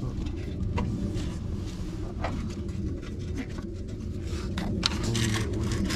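Scattered light clicks and taps of hand tools and parts being worked in a car's engine bay, over a steady low rumble.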